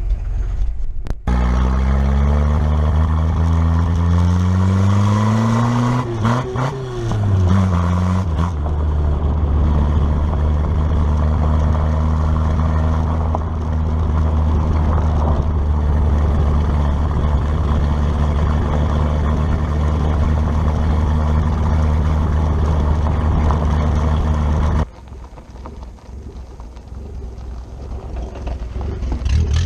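Carbureted Toyota Celica engine pulling away under load, rising in pitch, dipping once about six seconds in, then running steadily at cruising speed. The engine sound cuts off abruptly near the end, leaving quieter noise.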